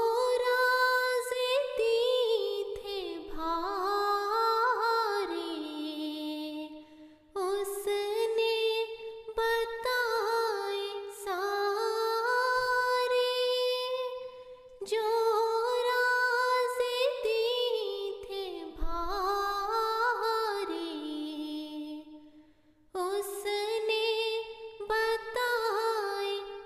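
A woman singing an Urdu nazm (devotional poem) unaccompanied, in four long melodic phrases that glide and ornament in pitch, with brief pauses for breath between them.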